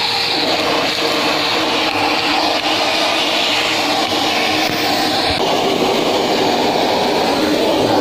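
Multipro 3-in-1 wet/dry vacuum cleaner running steadily, its narrow crevice nozzle sucking over a fabric car seat: motor noise with rushing air. A steady tone in it stops about five seconds in.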